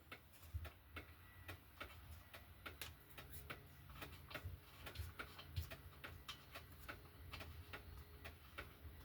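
Faint light clicking, a few clicks a second, from a hand tool unscrewing the spark plug of a Stihl MS 271 chainsaw.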